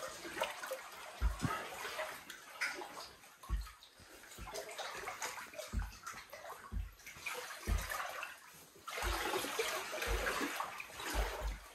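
Floodwater sloshing and swirling around someone's legs as they wade slowly through a flooded house, with a low thud about once a second at each step; the water noise grows louder near the end.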